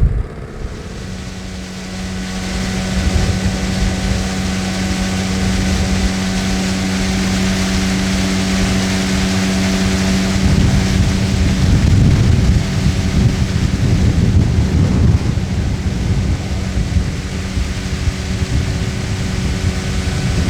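Outboard motor of a boat running underway, a steady hum that builds over the first few seconds, with heavy wind noise on the microphone rushing throughout.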